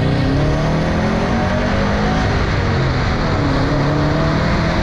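Truck driving on a road, heard from a camera on its hood: a steady rush of wind and road noise over the engine's hum, which shifts in pitch as the truck picks up speed.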